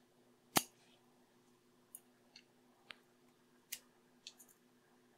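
One sharp click about half a second in, then a handful of faint ticks: metal tweezers and a fine probe tapping and pressing a small plastic locking tab into its slot in the Wowstick electric screwdriver's housing.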